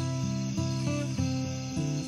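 Acoustic guitar picking the notes of a song's instrumental introduction, over a faint steady high-pitched trill.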